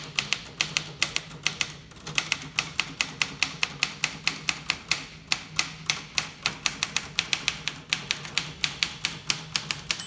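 Smith Corona Corsair Deluxe manual typewriter being typed on steadily: quick, sharp clacks of the type bars striking, about five or six a second, with brief pauses about two and five seconds in.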